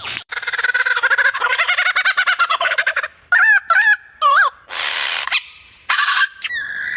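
Domestic fowl calling: a rapid run of clucking notes for about three seconds, then three short wavering calls and two short noisy bursts, with a steady held note starting near the end.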